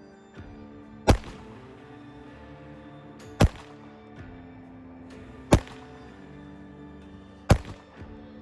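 Taurus TX22 Compact .22 LR pistol fired four single shots, about two seconds apart, each a sharp crack with a short ring after it.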